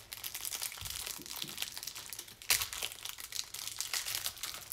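Plastic wrapping crinkling and tearing as a Donruss football trading-card hanger box is opened by hand, with one sharp rip about two and a half seconds in.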